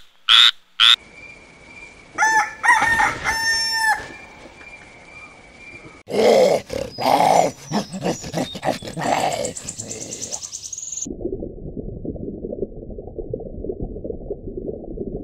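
A string of short animal sound clips: a frog croaking a few times, then a rooster crowing about two seconds in. A louder stretch of mixed calls and noise follows, and a low steady rumble fills the last four seconds.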